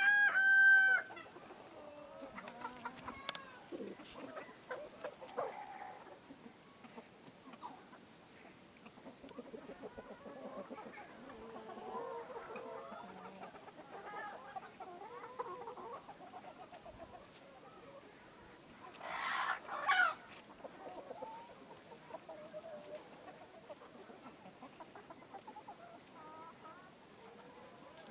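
Chickens clucking, with short calls scattered throughout. It opens with a loud, held call lasting about a second, and there is a louder burst about two-thirds of the way through.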